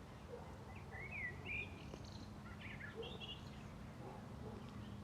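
A songbird singing a few short chirps and warbled phrases, about a second in and for the next two seconds or so, over a faint steady low hum.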